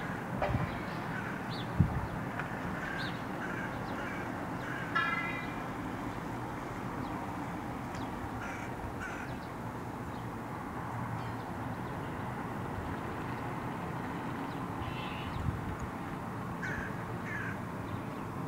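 Crows cawing now and then over a steady low rumble of distant traffic.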